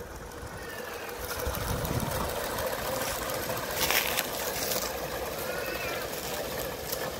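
Bowande live-steam model of an LMS Jubilee locomotive hauling a rake of carriages past on garden-railway track. The running and wheel clatter grow louder as it approaches, with a brief hissing burst as the engine passes about four seconds in.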